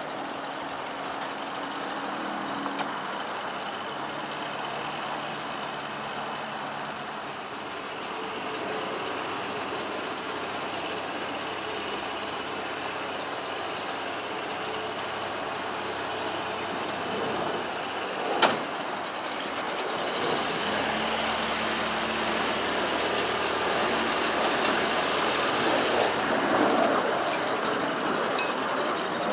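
Narrowboat diesel engine idling steadily under a constant rushing noise of water draining out through the paddles as the lock empties. Two sharp clicks sound, one about two-thirds of the way through and one near the end.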